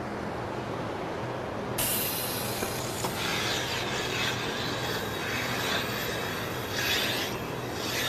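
Milking machine teat cups hissing as the vacuum draws in air while the milker unit is being attached to a cow's teats. The hiss starts about two seconds in and runs over a steady low hum.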